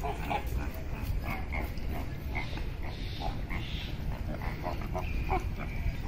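Many birds calling at once in an aviary: a dense run of short, overlapping calls, several a second.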